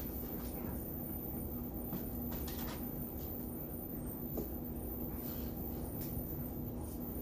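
Close-up mouth sounds of eating: chewing with scattered soft smacks and clicks at an uneven pace, over a steady low hum.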